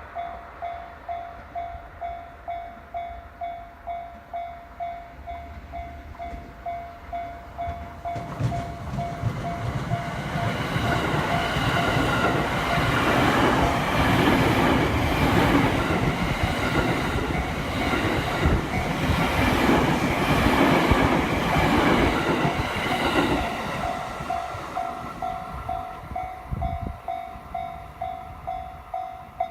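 A Japanese level-crossing warning bell dings about twice a second while an electric commuter train passes over the crossing. From about eight seconds in, the train's running noise and wheel clatter swell, cover the bell for some fifteen seconds, then fade, and the bell carries on.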